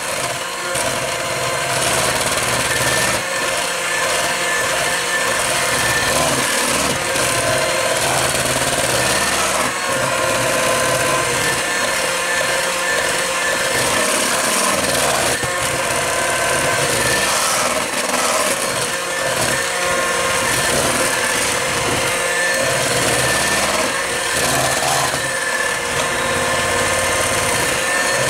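Electric hand mixer fitted with a single beater, running steadily at a constant pitch as it beats thick pumpkin bread batter in a stainless steel bowl.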